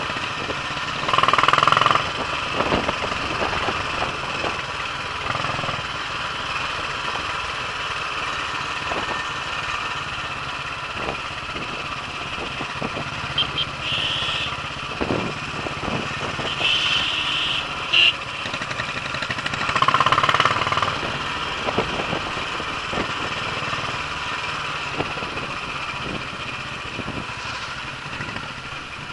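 Royal Enfield single-cylinder motorcycle engine running steadily as the bike rides downhill, heard from the rider's seat. Several short, loud high-pitched blasts cut through about a second in and again a few times around the middle.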